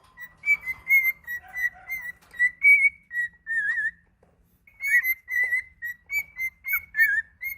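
Cockatiel whistling a run of short, clear notes, some with a warble, pausing briefly about four seconds in before going on.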